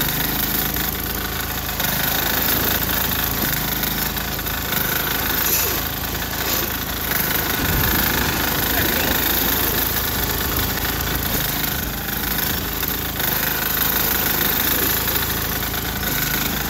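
Sears Suburban garden tractor's 6 hp single-cylinder diesel engine running steadily as the tractor works through heavy snow.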